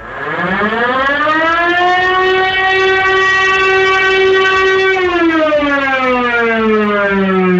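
Oil terminal's emergency alarm siren sounding one long wail: the pitch rises over about two seconds, holds steady, then begins falling about five seconds in.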